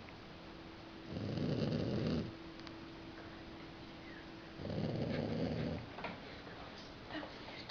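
Snoring: two long snores about three and a half seconds apart, each lasting about a second, with a faint steady hum in between.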